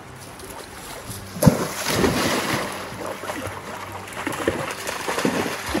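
A small dog splashing as it wades and runs through a shallow, fast-flowing stream, with a sharp splash about a second and a half in and repeated splashes after it, over the steady rush of the water.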